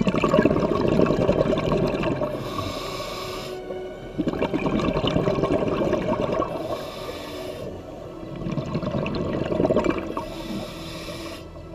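Scuba diver breathing through a regulator underwater. A high hiss on each inhale alternates with a rush of bubbling exhaust on each exhale, three breaths about four seconds apart.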